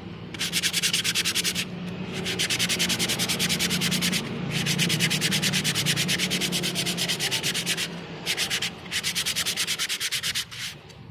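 Motorcycle brake pad lining being rubbed back and forth on sandpaper: rapid, even scraping strokes in five spells with short breaks between them. It is being sanded flat so its surface sits evenly against the disc.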